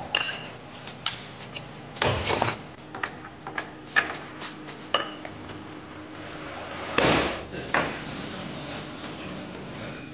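Clinks, taps and knocks of metal parts and seal-installer tools being handled and set down on a stainless steel bench while crankshaft oil seals are fitted, with louder knocks about two seconds in and about seven seconds in.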